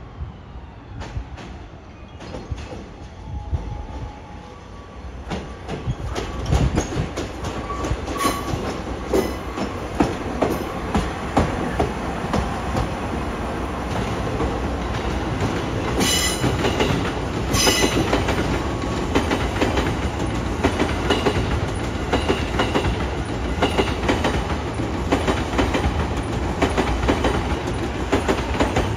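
Keiyo Rinkai Railway diesel locomotive KD501 passing close at shunting speed: a steady engine rumble and wheels clicking over rail joints, getting louder about six seconds in. Two brief high squeals come from the wheels near the middle.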